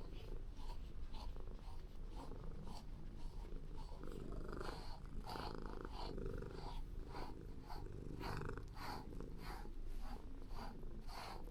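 Calico cat purring contentedly in a steady low rumble, with short higher sounds repeating about twice a second.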